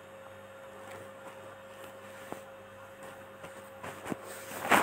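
Faint steady electrical hum with a few soft ticks, and a short rush of noise near the end.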